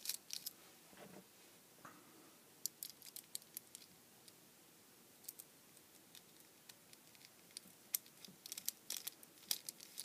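Faint scattered clicks and taps of small plastic and metal parts being handled as an emergency-stop switch contact block is put together, with a small screwdriver working its terminal screws. The clicks come more often near the end.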